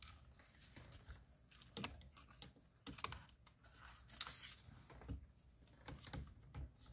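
Faint, irregular clicking and tapping of the trim pieces and wiring connectors of a C7 Corvette steering wheel being handled and worked loose by hand.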